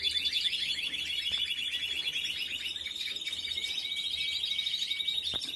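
A Spanish timbrado canary singing a long, unbroken run of fast trills, about ten notes a second, over a steady high held note.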